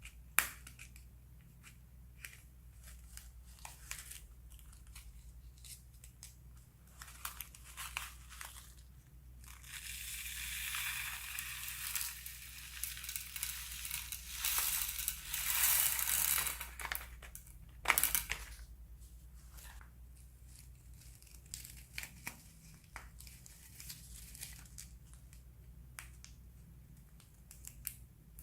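Plastic piping bags being handled and squeezed, crinkling and crackling with scattered sharp clicks. A longer, louder stretch of crinkling comes in the middle, and there are two louder snaps, one near the start and one later on.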